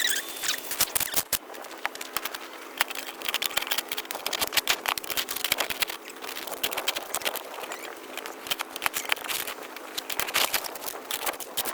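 Dense, irregular crackling and crunching clicks with a faint steady hum beneath.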